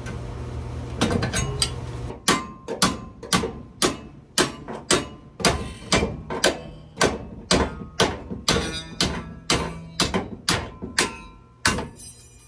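A reciprocating saw runs briefly, then a hammer strikes a rusted steel body rail over and over, about two dozen sharp, ringing blows at two to three a second, knocking at a partly cut tube mount to break it loose.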